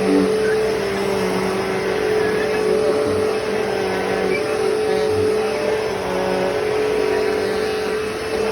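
Hoover Deluxe Elite Rewind vacuum cleaner running while vacuuming, a steady motor drone with a constant tone over the rush of air.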